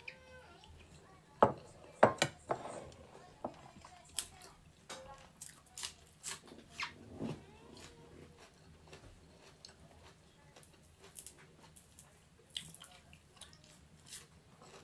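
Close-up eating sounds: chewing and wet mouth clicks and smacks while eating steamed chicken wings with fresh herbs, with a few louder sharp clicks around two seconds in.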